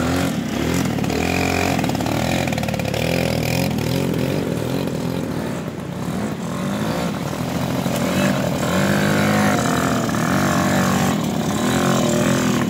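Two-stroke Yamaha V80 motorcycle engines revving as the bikes climb a rocky trail. The engine note keeps rising and falling with the throttle.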